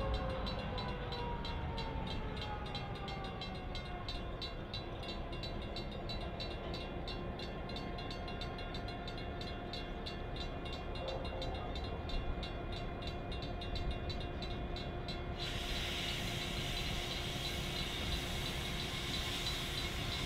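EMD GP9 diesel-electric locomotive's 567 two-stroke engine running as it pulls tank cars. Its whine falls in pitch over the first few seconds, then holds steady.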